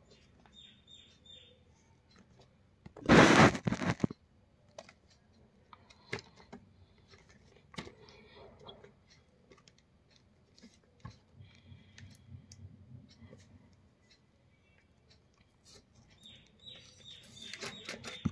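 Cardboard packaging being handled and opened: rustling, light taps and clicks, with one loud burst of noise lasting about a second around three seconds in. Near the end, denser scraping as a blade is run along the box's seal.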